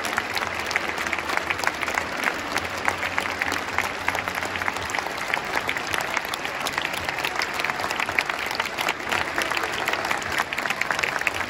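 Stadium crowd applauding steadily, with sharp individual hand claps close by standing out above the mass of clapping.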